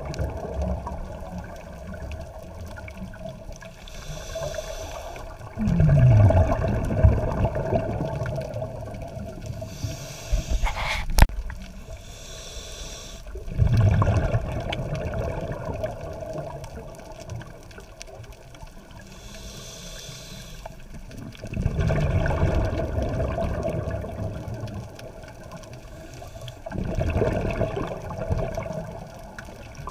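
Scuba diver breathing through a regulator underwater: a hiss on each inhale, then a gurgling rush of exhaust bubbles, four breaths about eight seconds apart. A single sharp click about eleven seconds in.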